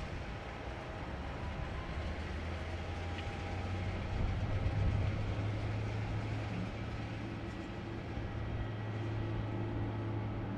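Steady rumble of jet airliner engines with a low hum and a faint whine above it, swelling a little about halfway through.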